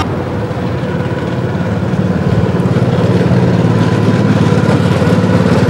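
Go-kart's small engine running steadily as the kart drives round the track, a buzzing drone that grows a little louder.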